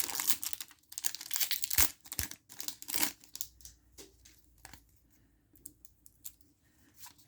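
Foil wrapper of a Pokémon booster pack being torn open and crinkled: a dense run of crackling rustles for about three seconds, then fainter, scattered crinkles.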